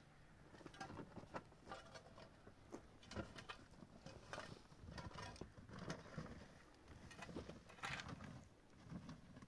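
Faint, irregular light taps and scrapes, roughly two a second, over a low background hum.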